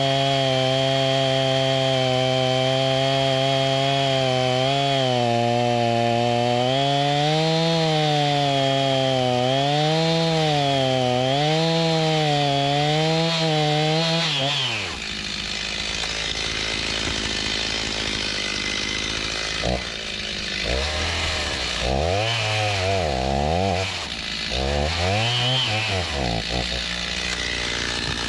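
Stihl MS290 two-stroke chainsaw running at high revs, its pitch dipping and recovering over and over as it works, typical of cutting wood. About halfway through it drops to a low idle, then is revved in several short blips near the end.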